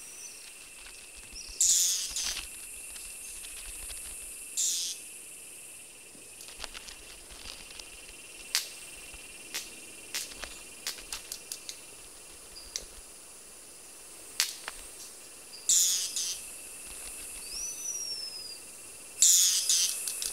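Red-capped manakins displaying: a scatter of sharp wing snaps and four louder short rasping bursts over a steady high insect drone. One brief rising-then-falling whistled bird note sounds near the end.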